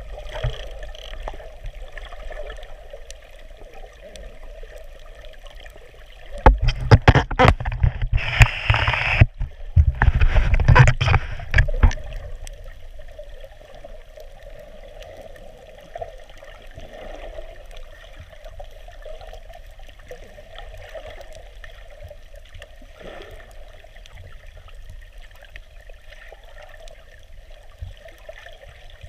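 Muffled underwater ambience picked up by a camera below the surface: a steady low hum with faint crackle, and a louder stretch of rumbling and knocks from about six to twelve seconds in.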